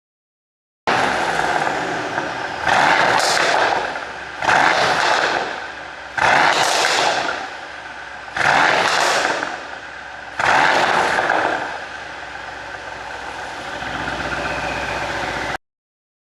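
Mercedes-AMG C63 (W205) twin-turbo 4.0-litre V8 revved in six quick blips about two seconds apart, each followed by popping and crackling from the exhaust as the revs fall, the sound of an ECU pop-and-crackle tune. The engine then runs steadily for the last few seconds.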